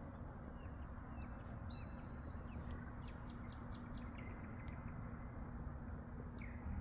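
Nightingale singing faintly: a couple of high whistled notes, then a quick run of short repeated notes, then downward-slurred notes near the end.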